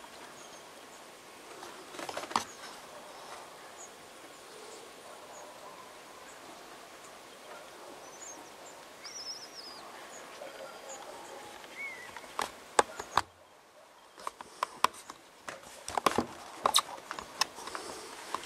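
Outdoor ambience: a steady hiss with a few faint, short bird chirps. A single sharp click about two seconds in. From about two-thirds of the way through, a cluster of sharp clicks and knocks, briefly interrupted by a near-silent gap.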